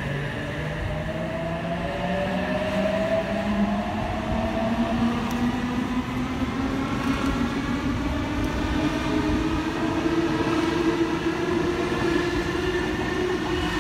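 Electric suburban train pulling away from the platform, its traction motors whining in several tones that climb slowly in pitch as it gathers speed, over a steady rumble of wheels on rail.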